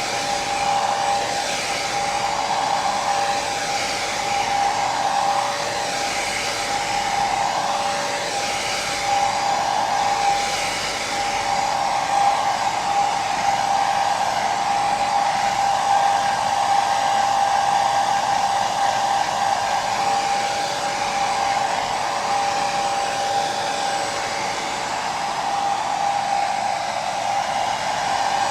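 Hair dryer running continuously as white noise for sleep: a steady airy rush with a constant whine from the motor.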